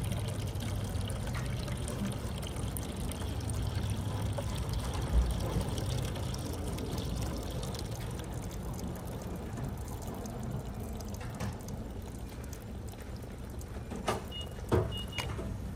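Diesel fuel being poured into the fuel tank of an HCALORY diesel air heater, a steady trickling pour over a low hum. A few clicks and knocks come near the end.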